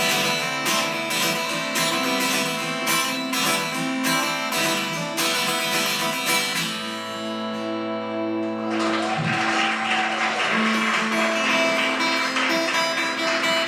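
Acoustic guitar strumming the closing chords of a song in a steady rhythm, then a final chord left ringing. About nine seconds in, a steady wash of noise joins the ringing chord.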